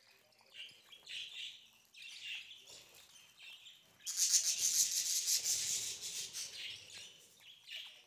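A flock of budgerigars chirping and chattering, with short high calls at first and a louder, denser outburst from about four seconds in that fades toward the end.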